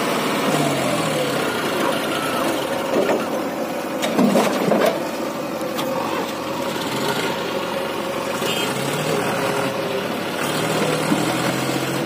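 Diesel engines of a John Deere 5045D tractor and a JCB backhoe loader running, their pitch rising and falling as they work. A few sharp knocks about four to five seconds in.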